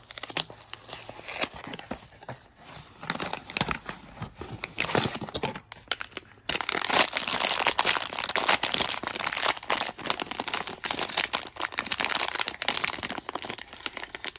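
Thin plastic blind-box wrapper being crinkled and pulled open by hand. Light rustling and scattered crackles at first, then from about six and a half seconds in, loud continuous crinkling as the bag is worked open.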